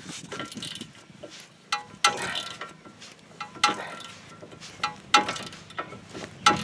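Sharp metal-on-metal clanks from a wrench on a seized tie rod nut, about six of them over a few seconds, each with a short ringing tail, as the nut is forced loose.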